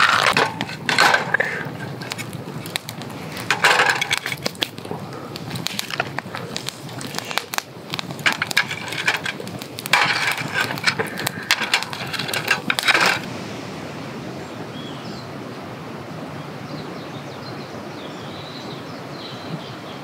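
Scallop shells and shellfish clinking against ice and each other as they are handled, then shells clattering onto a metal grill over a crackling campfire. About thirteen seconds in this gives way to a steady outdoor hush with a few faint bird calls.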